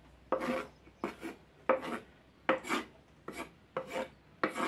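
Knife slicing through cabbage on a cutting board: about seven short, rasping cuts in a steady rhythm, the cabbage being chopped for dible.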